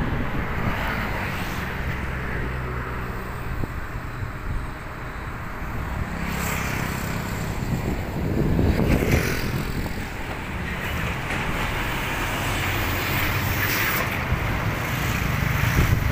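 A steady low engine hum under outdoor noise, with a few brief rushes of wind or handling noise on the microphone.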